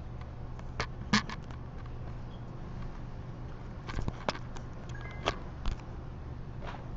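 A few short, sharp clicks and knocks, scattered irregularly, over a steady low hum.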